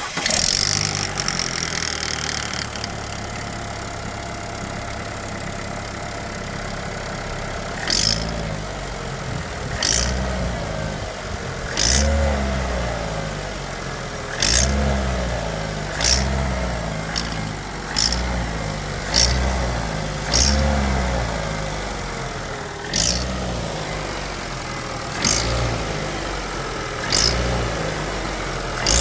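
Opel Astra J's 1.4 turbo A14NET engine starting and idling, then revved in short throttle blips about every two seconds, each with a sharp knock-like click as it opens. The owner complains of a knock when the engine is started cold, even after a timing-chain replacement with the timing set correctly to the marks.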